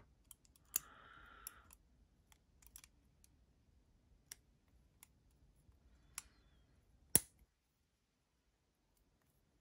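Small metal clicks and taps of Kizer Dukes folding-knife parts being worked into place by hand during reassembly, with a brief scrape about a second in and one sharper click about seven seconds in.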